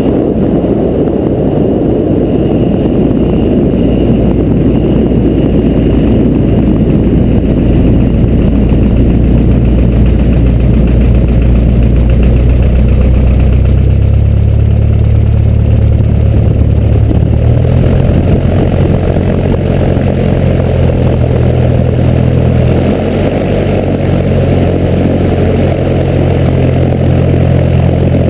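Cessna 172R's four-cylinder Lycoming engine idling as the plane rolls out on the runway, its note shifting in pitch a few times. It is mixed with a rush of wind and tyre noise that eases about halfway through as the aircraft slows.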